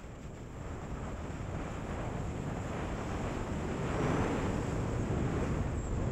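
Wind buffeting the pole-mounted camera's microphone, mixed with skis hissing and scraping over snow during a fast descent. The rushing grows louder as speed builds and is loudest about four seconds in.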